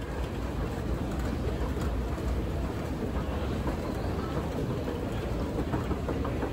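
Steady low rumble and rattle of a long, steep London Underground escalator running, heard while riding it down the shaft.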